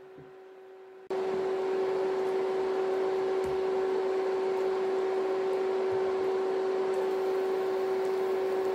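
Steady electrical hum at one constant pitch with a hiss underneath, from the cooktop under a pan of simmering sauce, starting suddenly about a second in.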